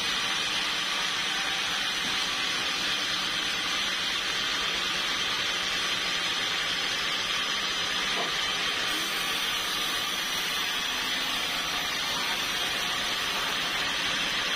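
Sawmill machinery running: a steady hissing noise that holds at one level without a break.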